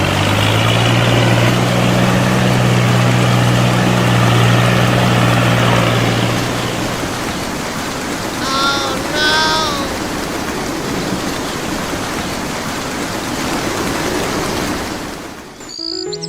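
A small motor hums steadily and stops about seven seconds in, over a constant rushing hiss like running water. Two short chirps come a little past the middle.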